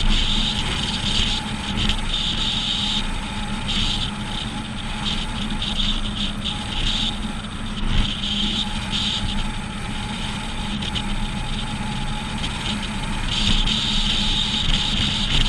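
Steady road and wind noise from a trailer towed at road speed behind a Chevrolet Silverado, with a low drone underneath and a high hiss that comes and goes.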